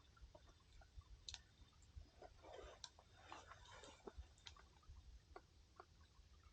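Wood campfire crackling faintly, with scattered irregular pops and ticks and a short flurry of crackle in the middle.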